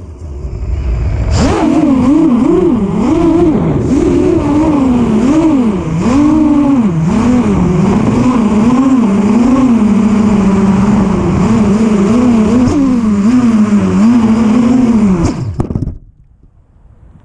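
FPV quadcopter's brushless motors and Gemfan 7042 propellers whining loudly from the onboard camera, the pitch swooping up and down with throttle. About sixteen seconds in the pitch falls and the motors spool down and stop as the drone lands.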